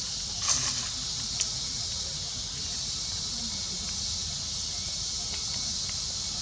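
Insects droning steadily at a high pitch, with a short scratchy noise about half a second in and a small click about a second later.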